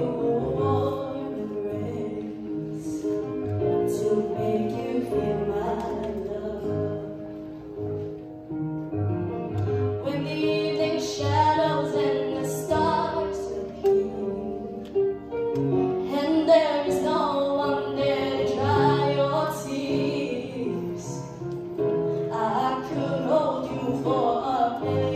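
A girl's solo voice singing a melody into a microphone over instrumental accompaniment, amplified through the hall's sound system.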